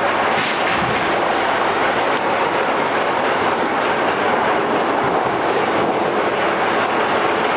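Home-built roll-forming machine for corrugated sheet running, with a steady mechanical noise and no breaks.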